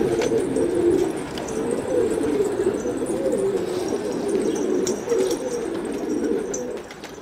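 A flock of domestic pigeons cooing, many overlapping coos at once; it dies down near the end.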